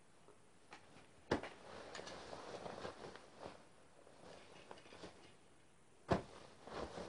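A man getting up from a wooden chair and sitting back down. There is a knock about a second in and another near the end, with clothes rustling between them as he handles his trousers and sweater.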